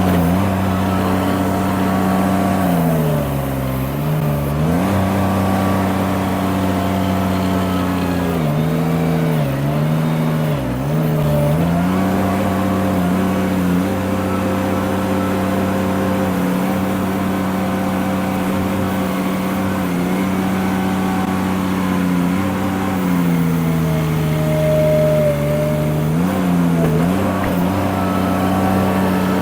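Derette V1000 mini skid steer's engine running steadily at working speed, its pitch sagging under load and recovering several times: a few seconds in, around ten seconds in, and again near the end.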